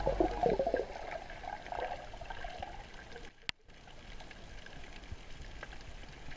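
Underwater sound picked up by a snorkeller's camera held below the surface: muffled water sloshing and bubbling, strongest in the first second, with a brief dropout and a sharp click about three and a half seconds in.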